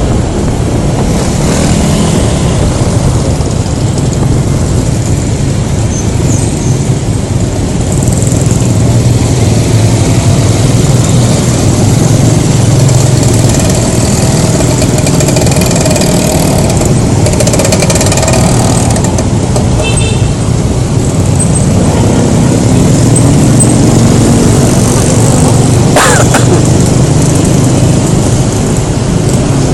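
Riding a Honda Scoopy scooter through traffic, heard from a phone taped to the helmet: steady wind and road rush over the engine and passing vehicles. A sharp click comes near the end.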